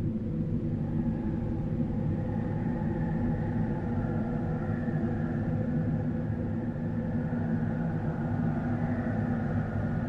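Horror 'spirit wind' sound effect: a steady low rumble with several higher tones held over it that slowly waver up and down in pitch.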